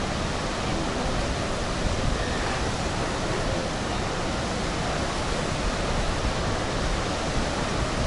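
Iguazu Falls: water rushing over the falls in a steady, unbroken noise with no change in level.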